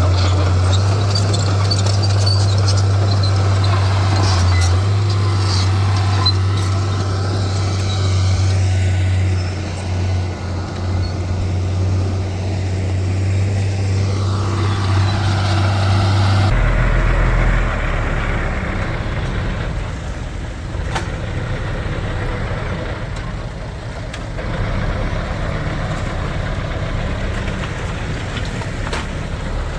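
Diesel engines of heavy earthmoving machinery running steadily with a strong low drone. About halfway through the sound changes abruptly to a rougher, lower engine note.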